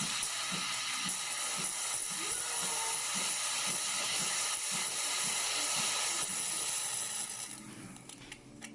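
Steam wand of a Gemilai CRM3610 espresso machine hissing steadily, then cutting off near the end.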